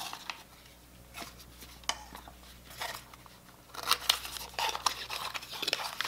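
Thin white cardboard packaging insert handled and unfolded by hand: scattered light taps and clicks at first, then busier rustling and crinkling of the card from about four seconds in.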